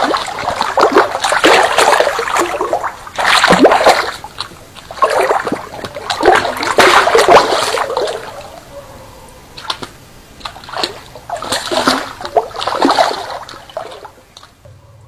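A big hooked fish thrashing and splashing at the surface of river water, in repeated loud bursts for the first half, then smaller, spaced splashes that fade out near the end.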